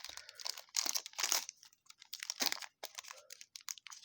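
Crinkling and tearing of a trading-card pack wrapper being torn open by hand, a run of irregular crackles and rustles.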